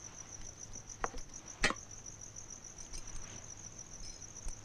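Crickets chirping steadily in a high, rapidly pulsing trill, with two sharp clicks a little after a second in.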